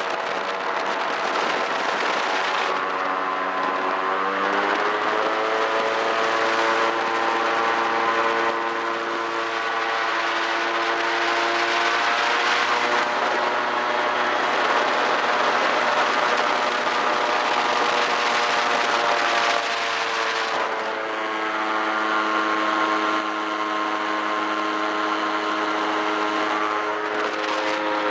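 Airboat engine and propeller running at speed, a loud steady drone. The pitch climbs about four seconds in, dips and climbs again around twenty seconds, and drops as the engine eases off near the end.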